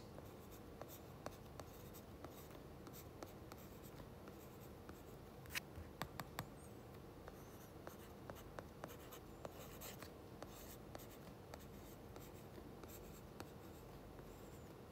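Faint, irregular taps and light scratching of a stylus writing on a tablet's glass screen, with a few louder ticks about six seconds in.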